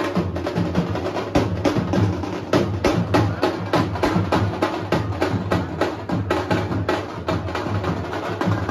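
A drum band playing a fast, dense rhythm of sharp, rapid strokes over deeper booming beats, with no break.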